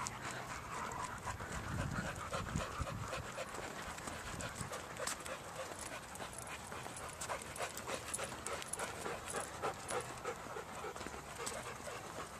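Dog panting, with many short, irregular clicks and crunches through it.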